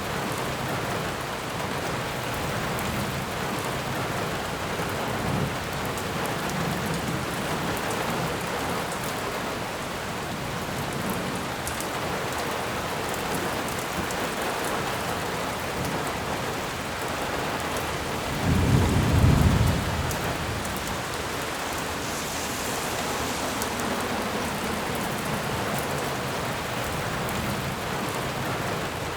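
Steady rain falling, an even hiss of drops. About two-thirds of the way through, a brief low rumble swells up for a second or two, the loudest sound.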